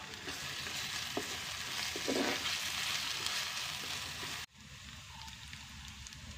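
Sliced onions and greens sizzling as they fry in a clay pot, stirred with a wooden spoon, with a scrape of the spoon about two seconds in; the sizzle swells in the middle and cuts off suddenly about four and a half seconds in, leaving fainter crackling of the wood fire.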